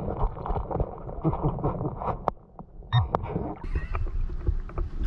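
Muffled underwater gurgling and knocking from a camera microphone held under the surface of a shallow creek, then, about three and a half seconds in, clearer splashing of water as a hand digs in the creek bed.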